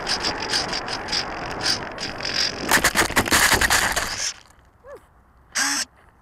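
Radian Pro RC glider's fuselage sliding through grass on landing, with rhythmic ticking and scraping as stems brush the airframe, then a louder rough scrape across gravel for about a second and a half before it stops dead about four seconds in. A short pitched call sounds near the end.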